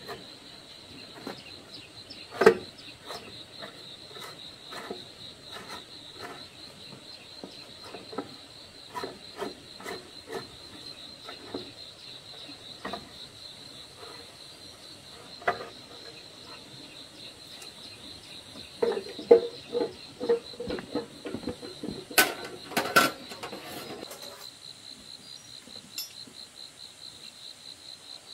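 Irregular metallic clicks and knocks of a socket wrench working a bolt on a small single-cylinder engine's block, with a louder clatter of knocks about two-thirds of the way through. Insects chirr steadily at a high pitch behind it.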